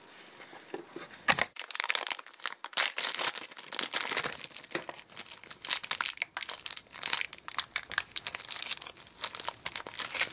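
Shiny foil toy blind bag crinkling and tearing as it is handled and opened by hand, in dense irregular bursts starting about a second in.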